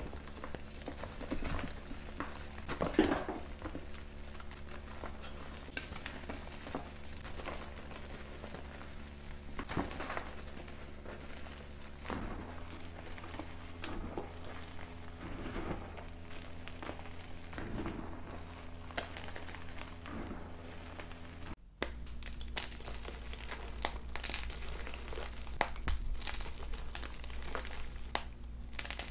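Fresh gym chalk blocks being crushed and crumbled by hand into powder: soft, irregular crunching and crumbling, over a faint steady low hum.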